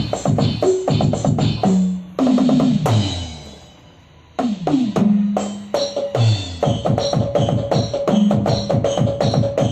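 Electronic drum sounds from a Roland SPD-20 percussion pad: a fast, steady drum-kit beat with falling-pitch tom hits about two seconds in. After a short lull the toms fall again near five seconds and the beat resumes, with a steady tone running under it.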